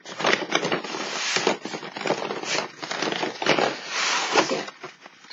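A cardboard sleeve being slid off a boxed advent calendar: cardboard scraping and rubbing against cardboard in a run of short strokes, dying down near the end.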